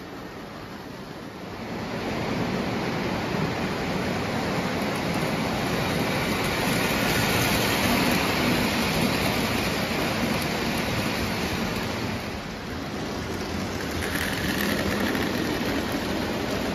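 O gauge electric toy trains running on three-rail tubular metal track: a steam locomotive pulling passenger cars rolls past close by with a steady rumble and whir. The sound eases off about twelve and a half seconds in, then swells again as a freight train of boxcars approaches near the end.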